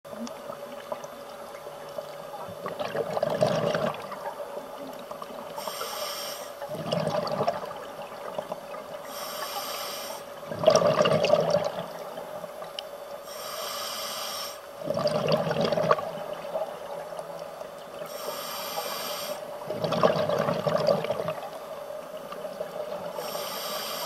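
Scuba diver breathing through a regulator underwater: a short hiss on each inhale and a louder burst of bubbles on each exhale, a breath about every four to five seconds, over a steady hum.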